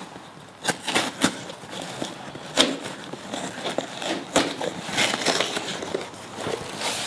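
Shipping box and packing material being handled and opened: irregular crackling, crinkling and rustling with sharp clicks and knocks.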